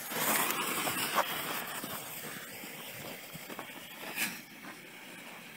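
Lit fuse of a chain of mortar ball shells hissing and sparking, loudest right after lighting and fading over the next few seconds, with a brief louder burst of hiss about four seconds in.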